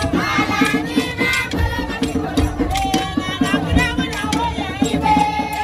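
Traditional Ghanaian festival music: fast, steady drumming with a group of voices singing.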